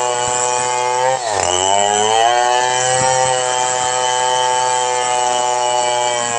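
Stihl MS 500i two-stroke chainsaw running at high revs while ripping a log lengthwise. About a second in, its pitch drops sharply as it bogs under the cut, then climbs back and holds steady.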